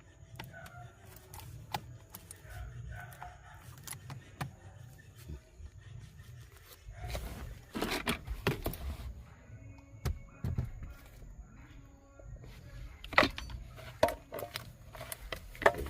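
Scattered clicks, knocks and light rattles of parts and tools being handled while refitting steering column components, with a louder cluster of rattling strikes about halfway through. A steady low rumble runs underneath.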